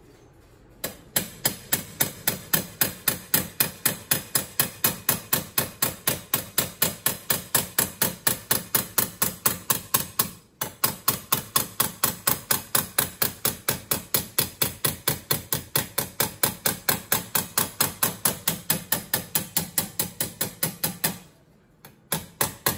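A body hammer striking a steel sheet-metal patch held over a T-dolly in a bench vise, in rapid, even blows of about four a second. The blows shape the patch's up-kick flange. They stop briefly about halfway through and again near the end.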